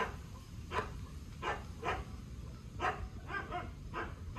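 A dog barking in a string of short, sharp barks, about two a second, with a quick double bark near the end.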